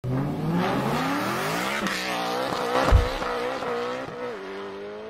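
Intro sound effect of a car engine revving up, rising in pitch over the first two seconds. A low thump comes about three seconds in, then the engine note holds and slowly fades.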